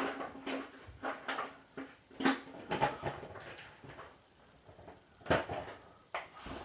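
Plastic clatter from a small plastic toy bin and its lid being handled, opened and set down: a handful of separate sharp knocks with quiet between them. The loudest knocks come about two seconds in and about five seconds in.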